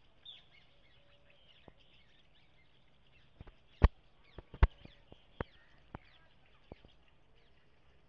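Faint chirping of birds in the background, short high calls throughout. About halfway through comes a run of sharp knocks, the two loudest close together, then a few softer ones.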